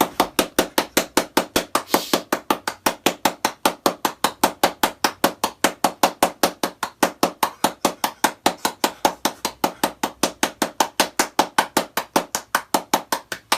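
Rapid, evenly spaced sharp knocks, about five or six a second, kept up without a break.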